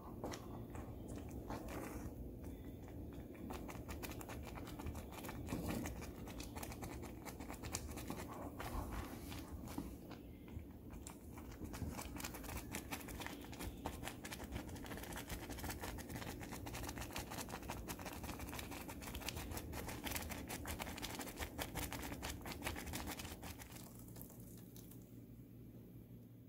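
Wooden spoon stirring thick cornmeal and banana wheat porridge in a pot: a steady run of small scrapes and clicks, dying down near the end.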